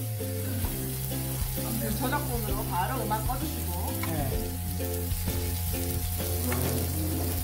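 Pork belly strips sizzling and frying on a grill pan over a portable gas stove, as they are moved with tongs. Background music with a steady bass beat plays over it.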